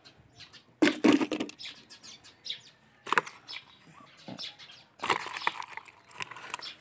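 Live climbing perch (puyo) flopping and thrashing against each other and the sides of a bucket, in sudden bursts: the loudest about a second in, a short one around three seconds and a longer one near five seconds.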